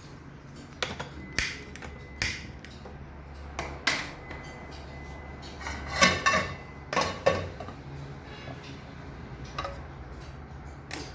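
A frying pan and other cookware clattering: a run of sharp metal knocks and clinks as the pan is handled and set on the stove, the loudest cluster about six to seven seconds in, over a steady low hum.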